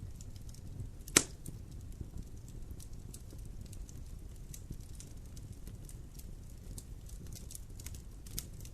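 Wood fire in a fireplace burning with a low rumble and scattered small crackles, and one loud sharp pop about a second in.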